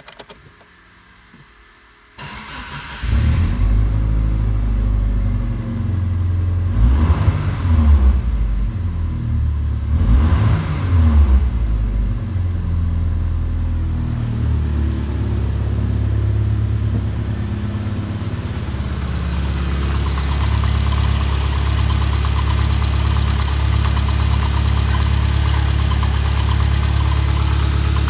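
Subaru Impreza's 2.0-litre EJ201 flat-four engine cranking and catching about two seconds in. It is revved briefly a couple of times, then idles steadily, growing louder near the end as it is heard up close in the engine bay.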